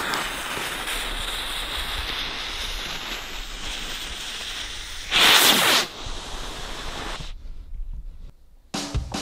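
Firework rocket's fuse sizzling steadily for about five seconds, then the rocket motor firing with a loud whoosh lasting under a second, followed by a softer hiss that dies away.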